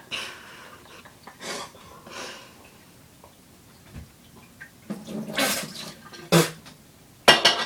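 People coughing, spluttering and breathing hard through a mouth burning from a hot spoonful, in irregular breathy bursts, with sharper coughs in the last few seconds.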